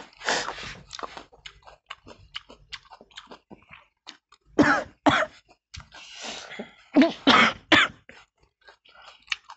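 A person coughing in short fits while eating raw onion, the onion's sharp pungency catching the throat: one cough near the start, two about halfway through, and three in quick succession near the end. Faint crunching and chewing of raw onion between the coughs.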